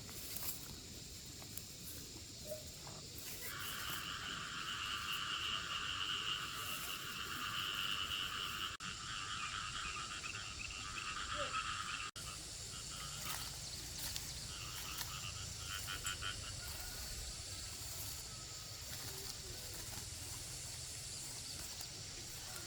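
A loud, rapidly pulsing animal trill, typical of a calling frog or insect chorus. It starts about three and a half seconds in, breaks off about twelve seconds in, and returns as a few shorter bursts, over a steady background of outdoor noise.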